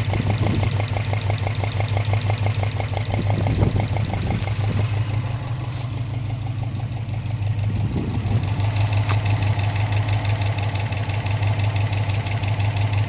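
2003 Subaru Impreza WRX's turbocharged flat-four engine idling warm, with a fast, regular burping knock in its running; the owner suspects piston slap in cylinder 1 or 3. The tone shifts a little past halfway, the knock coming through brighter.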